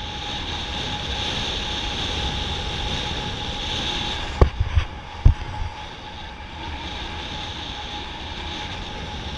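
Airflow rushing over the camera microphone in paraglider flight, steady throughout, with a faint steady tone running under it. A few sharp thumps come between about four and a half and five and a half seconds in.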